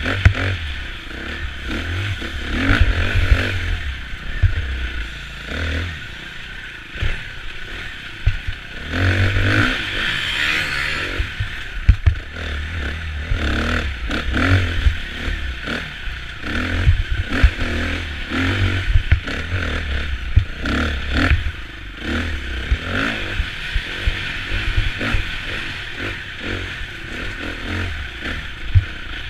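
KTM 350 EXC-F enduro bike's single-cylinder four-stroke engine, heard from the rider's helmet, with the throttle opened and shut again and again over rough trail. Sharp knocks and clatter from the bike hitting bumps and ruts, over a steady rush of wind.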